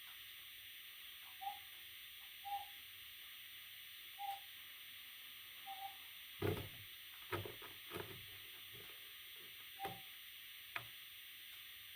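Parrot chicks giving short, soft, hoot-like calls, about six spaced a second or more apart, over a steady hiss. A few louder knocks and rustles come in the middle of the run.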